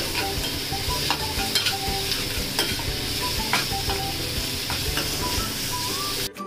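Sliced onions and ginger-garlic paste sizzling in hot oil in a metal pan while a metal spoon stirs them. The spoon scrapes and clicks against the pan again and again over a steady frying hiss.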